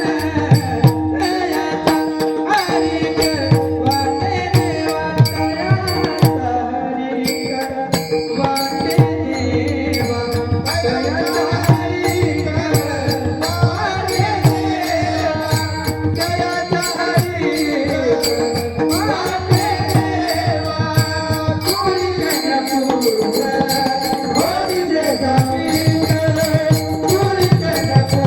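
Indian folk music: a voice sings a wavering melody over steady rhythmic percussion with a rattling, jingling beat.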